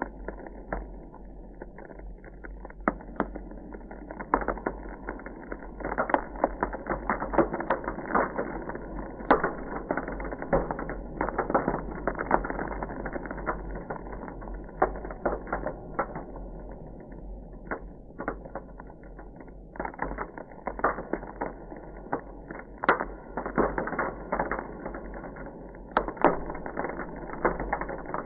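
Ice crackling: a dense, irregular run of small cracks and pops, bunching into louder clusters now and then, over a steady low hum.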